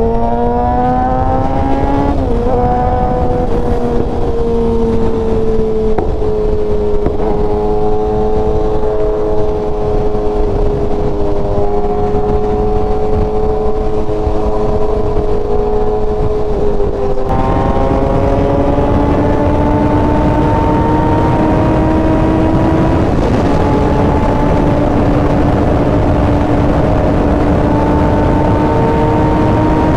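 Sport motorcycle engine running steadily at highway cruising speed, heard from the rider's seat over a bed of wind and road noise. The engine note dips briefly near the start and changes a little over halfway through, then climbs slowly.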